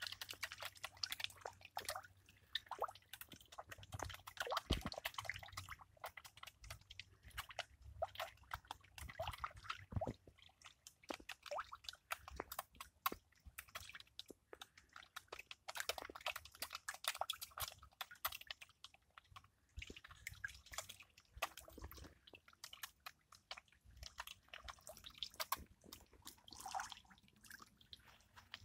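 A crowd of fish feeding at the water's surface, smacking and slurping as they gulp floating food: a dense, irregular patter of small wet clicks and pops.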